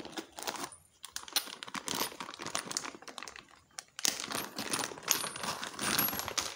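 Thin clear plastic bag crinkling and rustling as it is handled and pulled open, a dense run of small crackles that grows louder from about four seconds in.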